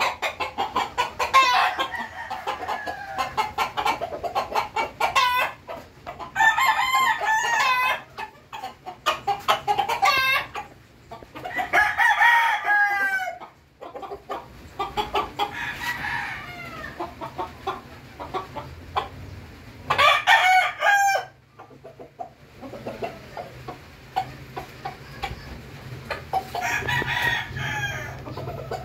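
Roosters crowing several times, each crow a long call of a second or two, with quick short clucking calls in between.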